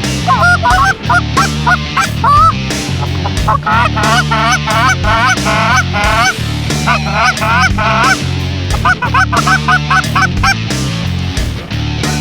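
Canada goose honks and clucks in fast runs, several bursts of quick notes with short pauses between them, over background music with a steady bass line.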